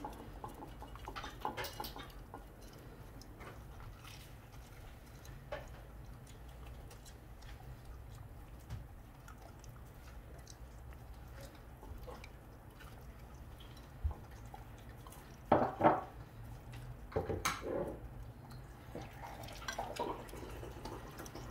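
Jindo dog eating fish scraps off a glazed ceramic plate: irregular clicks, knocks and scrapes of its mouth against the plate, with the loudest cluster of knocks about three-quarters of the way through.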